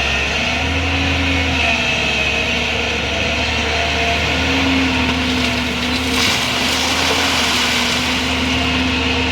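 JCB 205 excavator's diesel engine running steadily under working load, its pitch wavering slightly as the hydraulics are worked. A short rush of rougher noise comes about six seconds in.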